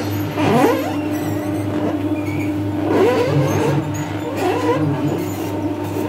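Wood-pressed oil mill grinding niger seed, its wooden pestle turning in a steel mortar: a steady machine hum, with short squeaky glides every second or two.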